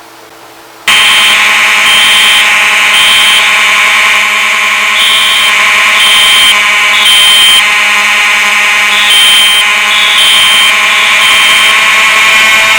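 Fire alarm sounding on test: it comes on suddenly about a second in, a loud continuous buzzing tone with a higher note pulsing on and off over it.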